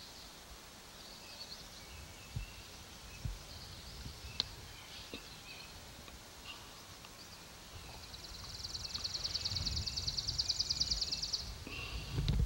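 Outdoor birdsong: faint scattered chirps, then a rapid, high-pitched trill that swells in about eight seconds in and runs for about three and a half seconds before stopping, with occasional low thumps on the microphone.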